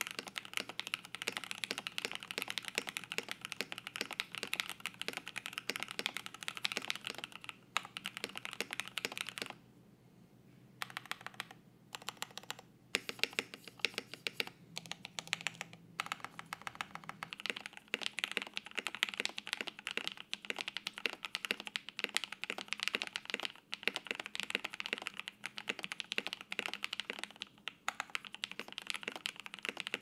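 Fast, continuous typing on a KBD67 Lite mechanical keyboard (ABS case, polycarbonate plate, no case or switch foam) fitted with JWICK black linear switches with full nylon housings. Early on the switches have only their stock factory lube; later they are lubed with Krytox 205g0 and fitted with Deskeys films. Typing stops briefly about ten seconds in, with a few short gaps after that.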